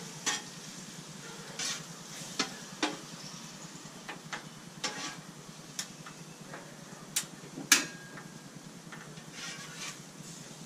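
An egg scramble with potatoes, onions and peppers sizzling steadily on a flat-top griddle, while a metal spatula scrapes and clacks against the cooktop about a dozen times at irregular intervals as the eggs are stirred.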